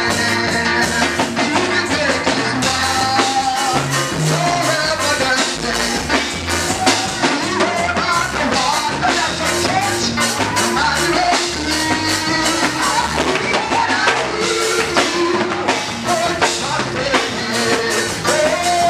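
Lively church music: a drum kit keeping a steady, fast beat under a lead voice singing.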